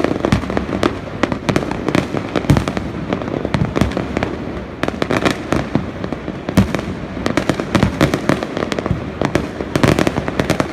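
Fireworks display: a rapid, unbroken barrage of bangs, many each second.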